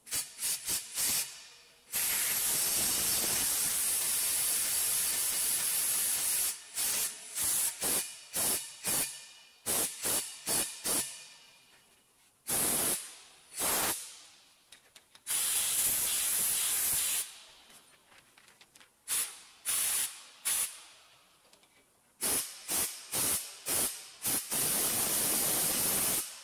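Hiss of pressurised gas spraying from a nozzle, in many short puffs and several longer, steady blasts of two to four seconds each.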